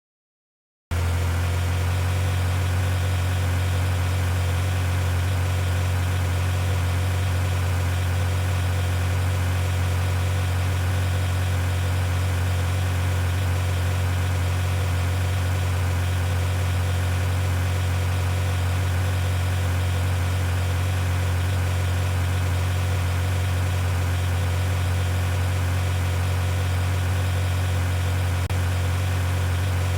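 Vehicle engine idling with a steady, unchanging low hum, starting abruptly about a second in.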